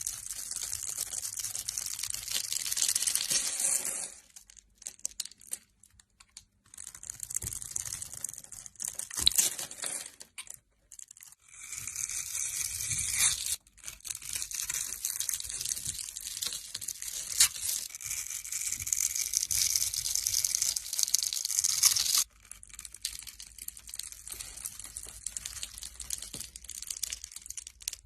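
Knife cutting through soap: crisp, crackly scraping slices that come in several passes of a few seconds each, with short pauses between them.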